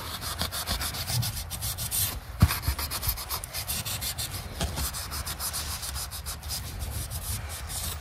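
Green abrasive scrub pad rubbed in quick back-and-forth strokes along the metal rod of a gas furnace flame sensor, scrubbing off soot and carbon buildup. A single sharp knock comes about two and a half seconds in.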